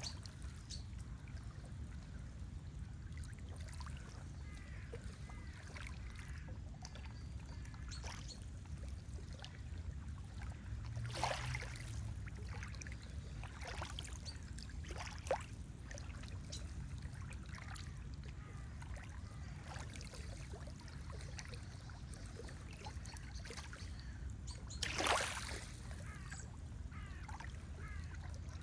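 Lake water lapping, with a steady low rumble and short splashes now and then, the loudest near the end. Faint small-bird chirps sound throughout.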